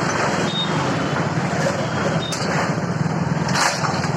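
Heavy diesel engine of a bulldozer running steadily, with the general noise of road traffic around it.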